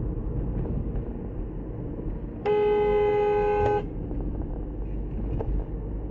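Car horn sounding in one steady blast of a little over a second, about two and a half seconds in, over the low hum of a car driving.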